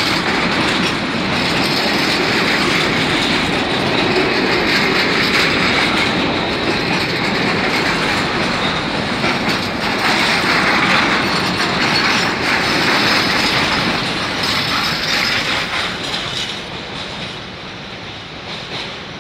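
Container freight wagons rolling past on the track, a steady loud rush of wheels on rail; the sound falls away over the last few seconds as the end of the train goes by.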